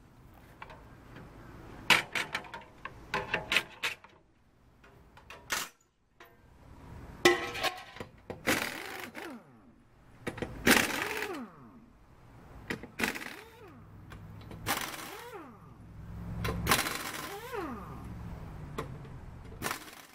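Air impact wrench running in about half a dozen short bursts, spinning lug nuts onto a wheel, its pitch rising and then falling away after each burst. A few sharp metal clicks come about two seconds in.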